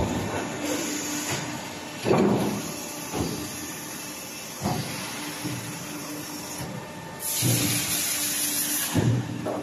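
Transformer corrugated fin forming line running: a steady machine hum broken by irregular knocks and clunks as the steel strip feeds through. About seven seconds in, a loud hiss lasts for about two seconds.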